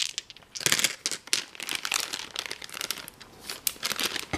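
A small, thin plastic bag holding a few 10-sided dice, crinkling with irregular crackles as it is handled.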